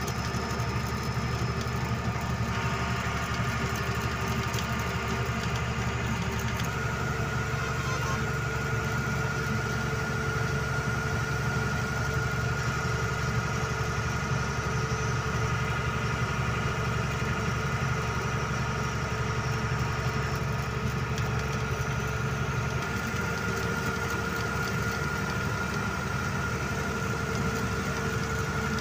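Truck engine running steadily while driving, heard from inside the cab, with a low hum and a thin, steady high whine that grows stronger a few seconds in.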